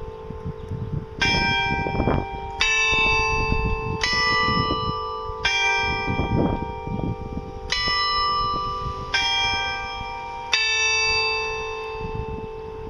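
Carillon bells of the New Ulm Glockenspiel clock tower playing a slow tune. Single notes are struck about once a second, each a different pitch, and each rings on into the next.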